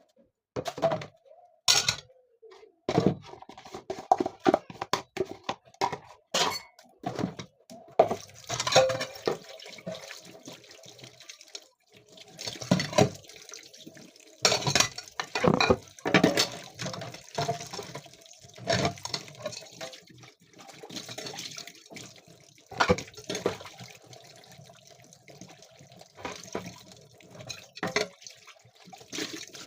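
Washing up at a kitchen sink: water running from the tap in spells, with dishes and utensils knocking and clinking many times.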